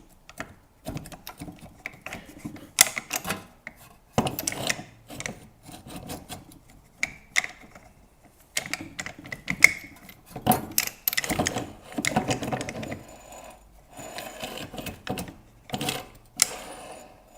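Mini lathe tailstock being worked along the bed with its clamp nut tightened: uneven metal scraping with clicks and knocks. It sticks instead of sliding smoothly, which the owner puts down to a rough underside on the track.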